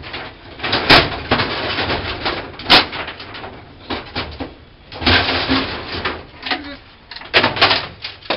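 Clattering, scraping and sharp knocks of a vending machine's metal parts being pulled about and taken apart by hand, with two sharp knocks in the first three seconds and more near the end.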